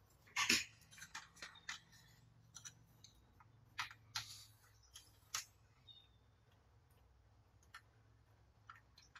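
Hard plastic toy fighter jet handled by gloved hands: scattered clicks and taps of plastic parts, loudest about half a second in, growing sparse after about six seconds.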